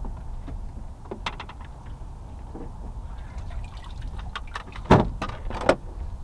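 Lake water slapping against a boat hull, with a few sharp knocks and splashy clatters. The loudest two come about five seconds in and again just before six.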